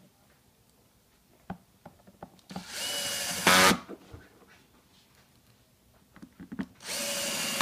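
Cordless drill-driver running twice, each run about a second long and louder at the end, as it drives screws into a plastic housing.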